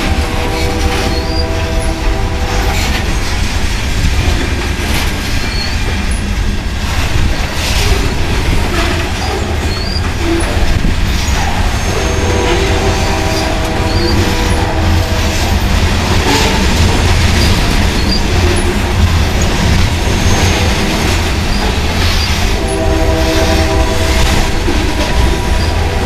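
Freight train of covered grain hopper cars rolling past close by: a steady low rumble of wheels on rail, with scattered clicks from the wheels. A steady tone at several pitches at once comes in three times, at the start, around the middle and near the end.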